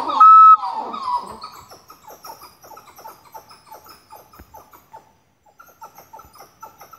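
A small monkey calling, a racket: a loud burst of calls with one steady piercing note at the start, then a fast run of short chirps, about four or five a second, that breaks off briefly and starts again.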